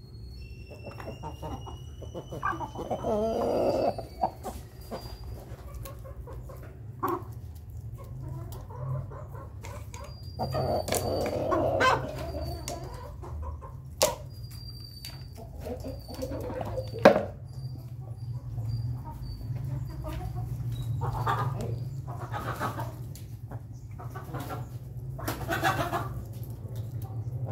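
Chickens, roosters and hens, clucking and calling in bouts while they feed. A few sharp knocks come from beaks striking the metal feed pot.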